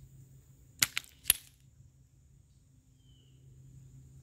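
Three sharp clicks in quick succession about a second in, all within half a second, standing out over a faint steady background.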